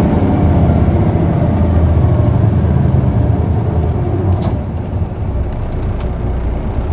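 Diesel engine of a PKG-KV234L2 city bus (Isuzu Erga) running under way, heard from inside the passenger cabin as a steady low drone. A single click comes about four and a half seconds in, and the engine sound eases slightly just after.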